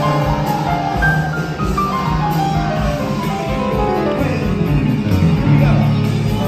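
Loud party music with a steady beat, carried by repeated runs of notes stepping down in pitch.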